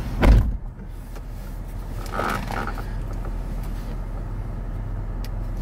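Steady low rumble of a car running, heard inside the cabin, with a short loud thump right at the start.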